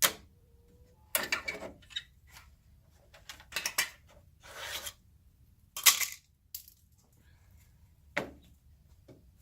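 Irregular knocks and clatters of wooden pieces being handled and set down on a workbench, about a dozen in all, the loudest about six seconds in.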